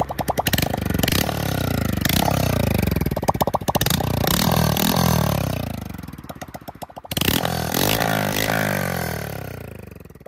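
Honda Monkey 125's single-cylinder four-stroke engine revved by hand at a standstill with its muffler come off: a loud, raw exhaust note that rises and falls several times, holds a longer rev in the middle, and dies away near the end.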